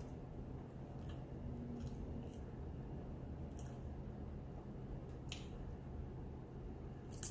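Faint mouth sounds of someone eating: soft wet chewing with half a dozen scattered lip smacks, over a low steady room hum.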